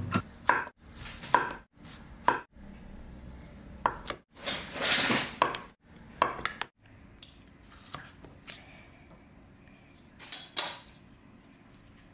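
Chef's knife slicing a Korean zucchini into rounds on an end-grain wooden cutting board, a crisp knock on the board with each cut, several cuts in the first seven seconds. There is a longer, noisier sound about five seconds in, and softer knocks and clicks in the second half.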